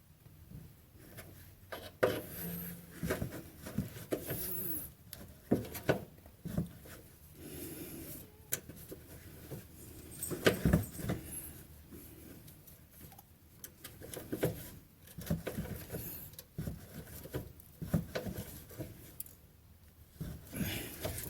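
Irregular clinks, knocks and rubbing of metal hand tools and parts being handled while working on rusted bolts, with no steady motor sound.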